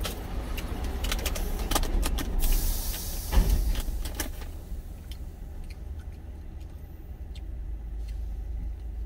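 Steady low rumble of a truck cab, with scattered small clicks and rustles of handling in the first couple of seconds, a short hiss, and one loud thump about three and a half seconds in; quieter after that, with faint ticks.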